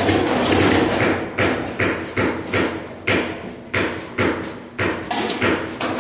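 Paintball markers firing, with paintballs smacking against bunkers: a string of sharp, irregular cracks about two to three a second, echoing in a large warehouse arena.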